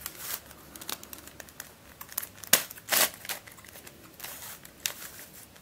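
Plastic pieces of a Dayan + MF8 pentahedron twisty puzzle clicking and scraping as its layers are turned by hand. The clicks come irregularly, with two louder clacks near the middle. The puzzle turns stiffly.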